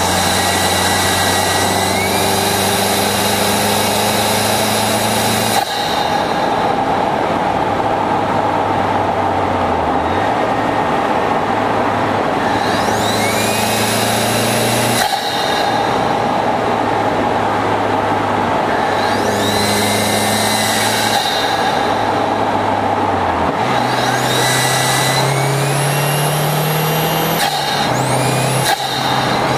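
Audi A3 engine running at road speed, heard from a camera on the bonnet, with a steady rush of road and wind noise. Its note steps in pitch a few times, and a high whine rises in pitch several times.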